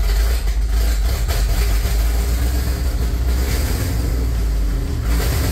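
Carbureted engine of a 1975 International dump truck running steadily with a low rumble, heard from inside the cab. On the carburetor it had to be kept running with the throttle.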